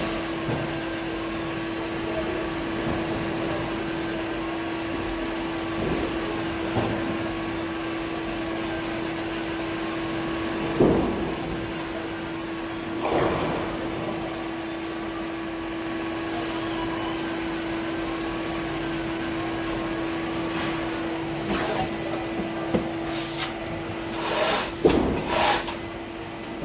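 Bowling ball drilling machine running with a steady motor hum, with a few short louder cutting or knocking sounds as it works the ball, most of them near the end.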